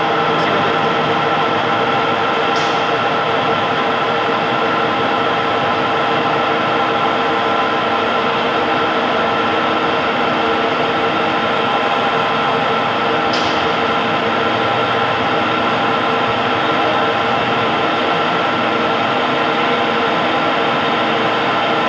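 Lathe running steadily: a constant mechanical hum with several steady tones.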